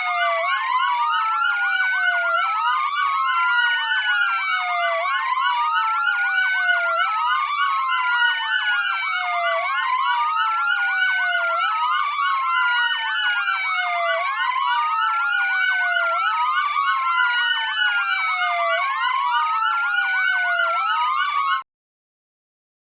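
Several emergency-vehicle sirens wailing together, their rising and falling tones overlapping, the loudest sweeping up and down about once every two seconds. They cut off abruptly near the end.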